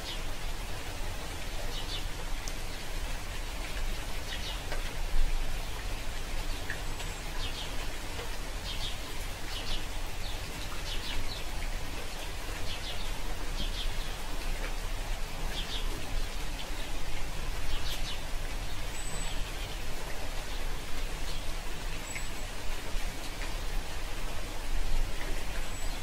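Birds chirping in short high calls every second or two over a steady hiss like rain, with the calls thinning out in the last several seconds.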